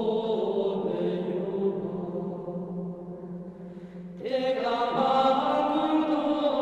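Chanted vocal music with long held notes. It falls quieter for a moment, then a new phrase comes in about four seconds in.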